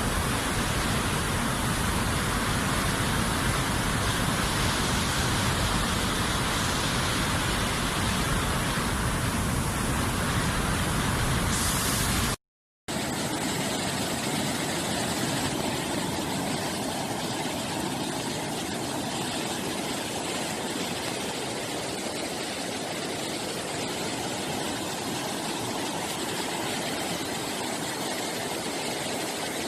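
Steady rushing noise with no distinct events. It breaks off suddenly about twelve seconds in, then resumes with much less deep rumble.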